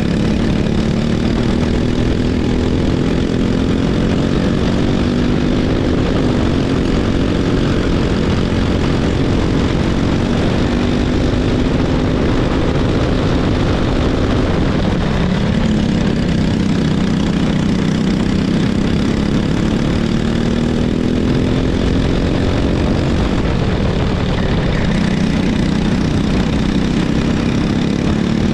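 Racing kart engine at full race pace, its pitch climbing slowly for several seconds along the straights and then dropping off into the corners, several times over, with a steady low rumble underneath.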